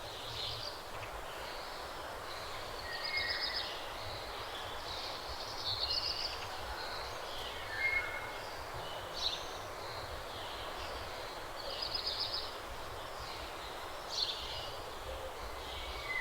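Songbirds calling outdoors, with short high chirps and trills every second or two over a steady background hiss.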